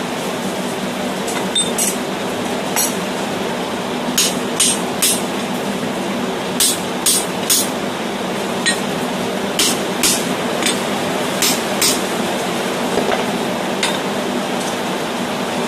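Hand hammer striking a steel punch driven into the eye of a red-hot hammer head: about fifteen sharp metallic clinks, mostly in quick groups of two or three, as the eye is punched and opened up. A steady rush of heavy rain runs underneath.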